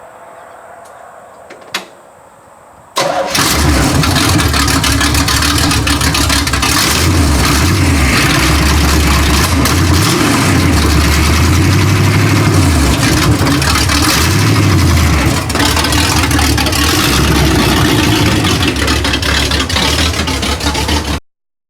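1985 Chevy K10 pickup engine starting about three seconds in and then running loudly, its revs rising and falling, until it cuts off suddenly near the end.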